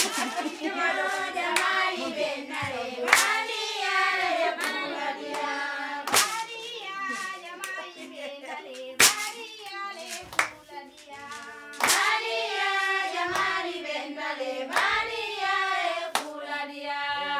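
Several voices singing a chant together, with sharp hand claps about every second and a half.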